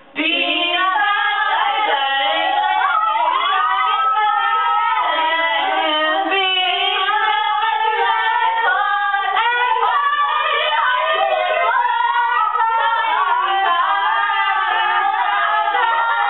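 Several voices singing together, starting abruptly after a brief gap.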